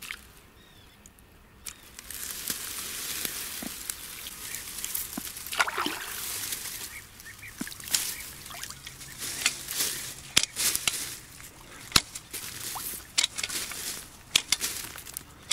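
Water sloshing and trickling, with scattered sharp knocks and clicks, as a snag of wood is pulled out of shallow pond water by hand. It starts about two seconds in.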